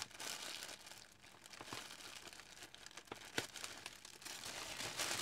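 Tissue paper and packing material rustling and crinkling as a wrapped parcel is handled, with scattered small crackles and taps.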